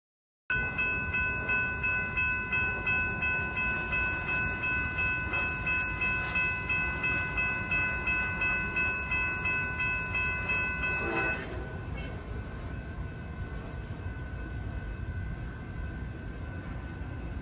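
Railroad grade-crossing warning bell ringing, an evenly pulsing metallic ding about twice a second, as the crossing activates for an approaching train. The ringing cuts off suddenly about 11 seconds in, leaving a fainter steady ring.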